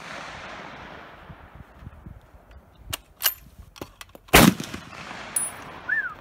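M1 Garand .30-06 semi-automatic rifle firing a single loud shot a little over four seconds in, its report echoing off the surrounding forest. The echo of the previous shot is still dying away at the start. A few faint sharp cracks come shortly before the shot, and a brief high metallic ring about a second after it.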